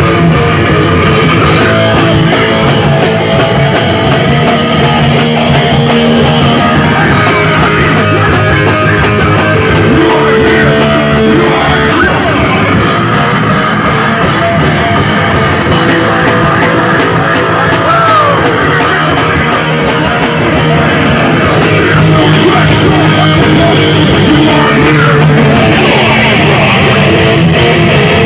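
Loud punk rock music with electric guitars and drums, playing without a break.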